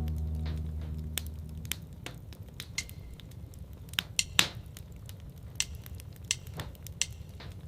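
Wood fire in a fireplace crackling, with irregular sharp pops, the loudest a cluster about four seconds in. A held low musical chord dies away during the first two seconds.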